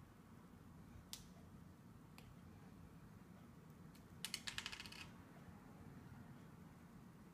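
Small plastic LEGO minifigure pieces clicking as they are handled and pressed together. A sharp click comes about a second in and a fainter one a second later, then a quick run of clicks lasting under a second near the middle, over near silence.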